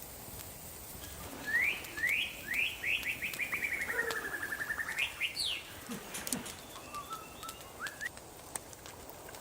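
A bird singing: a few quick rising chirps, then a fast trill that slides down in pitch and ends on a high upward note. A few fainter chirps follow.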